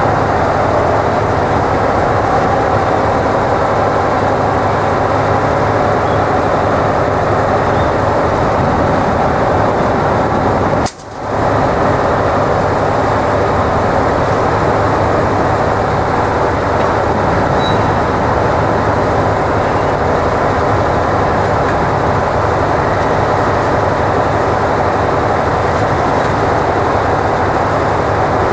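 Diesel locomotive engine idling close by, a steady low running sound, briefly cutting out about eleven seconds in.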